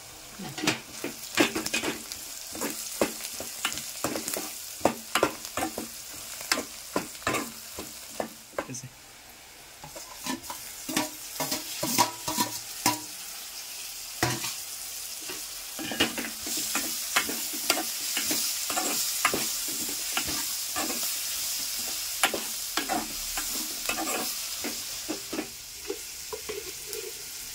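Onions and green chillies frying in oil in an aluminium pot, sizzling while a spoon stirs, with frequent sharp scrapes and knocks against the pot. The sizzle grows steadier and louder in the second half, once tomatoes are in.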